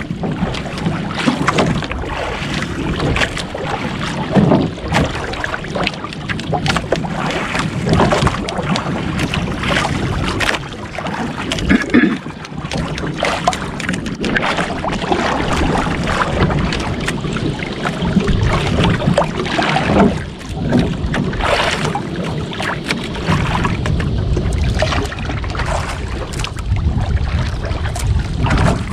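Wind buffeting the microphone over choppy sea, with waves slapping and sloshing against the hull of a small outrigger boat in irregular splashes.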